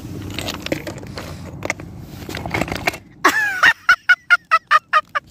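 Rough stones clacking and scraping as they are shifted by hand. About three seconds in, a loud, high-pitched sound falls in pitch, then comes a rapid run of short high pulses, about six a second.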